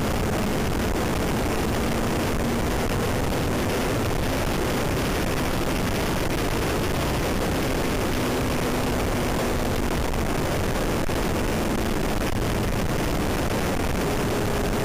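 Steady wind rush on a motorcycle-mounted camera at road speed, with the motorcycle's engine humming faintly underneath and shifting pitch a little now and then.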